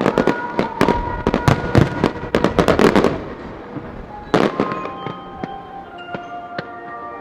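Fireworks display: rapid bangs and crackling bursts for about three seconds, one more cluster of bangs about four and a half seconds in, over music with sustained notes that comes to the fore once the bursts die down.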